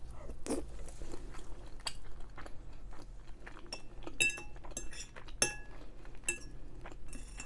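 Cutlery clinking against a plate while eating pasta: a scatter of light taps, several in the second half with a brief metallic ring, alongside soft chewing.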